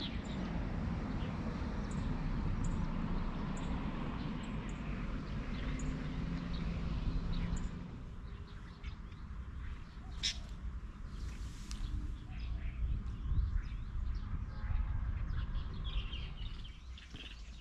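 Small songbirds chirping, with short high chirps coming about once a second over a low rumble that eases off about eight seconds in. A few sharp clicks follow in the quieter second half.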